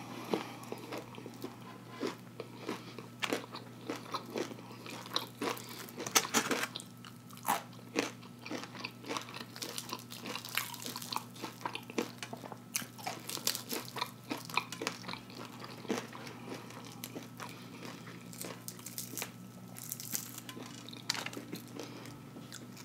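Close-up eating sounds of breaded fried catfish: irregular crisp crunches of the fried crust and chewing as the fish is picked apart with fingers and eaten. A faint steady low hum runs underneath.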